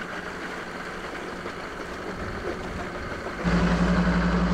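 A vehicle engine idling steadily. It is faint at first, then becomes much louder about three and a half seconds in, with a steady low hum.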